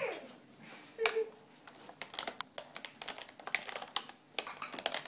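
A young child's short vocal sound about a second in, then rapid, irregular light clicks and taps.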